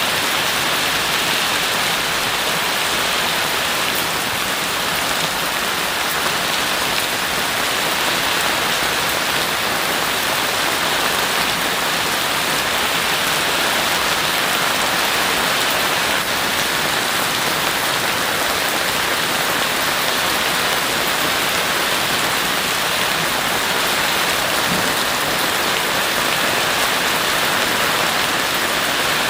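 Heavy rain falling steadily, a dense even hiss of drops on a surface with no breaks or thunder.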